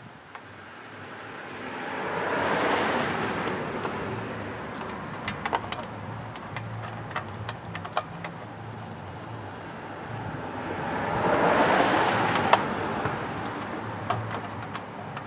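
Two vehicles pass by one after the other, each a swell of road noise that rises and fades, about nine seconds apart. Sharp metallic clicks and clinks of hand tools or parts come in between and near the second pass.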